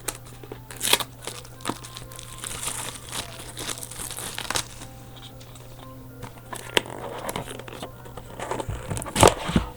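Plastic wrapping crinkling and tearing as a sealed box of trading cards is opened, with scattered clicks and taps and a busier burst of handling near the end.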